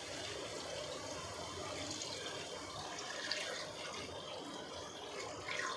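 Water pouring in a steady stream from a plastic pitcher into a pot of crab pieces.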